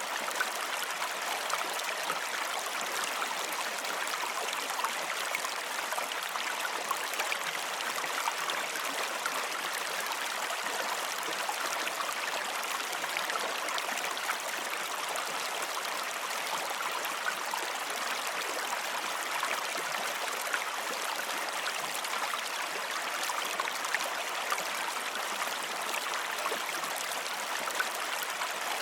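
Steady running water, a stream flowing without a break.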